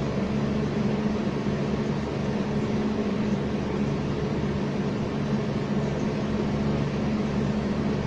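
Steady machine hum: a low drone with a band of even noise above it, unchanging throughout.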